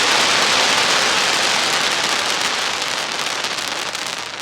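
Dense crackling hiss of fireworks, many small pops running together like rain, slowly dying away; separate crackles stand out near the end.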